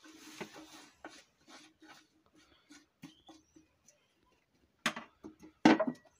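Stainless-steel cooking pot and utensils clanking: faint scraping and small knocks at first, then two loud knocks near the end, the second with a short metallic ring.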